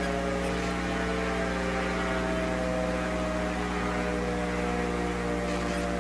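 A steady droning hum made of many overlapping tones, a few of them wavering slowly in pitch, over a faint hiss.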